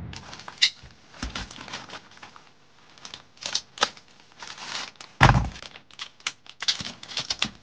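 Thin plastic wrapping crinkling and tearing in quick, irregular crackles as a new HEPA cabin air filter is unwrapped by hand. There is one louder dull thump about five seconds in.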